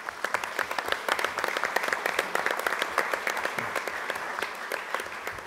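Audience and panel applauding, many hands clapping, rising quickly at the start and slowly dying down near the end.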